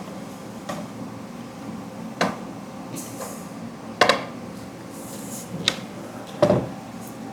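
Handling of 3D printer parts: five or six light knocks and clicks as a greased steel rod and its bearings are worked and set down, with a couple of brief rustles of paper towel wiping grease off the rod.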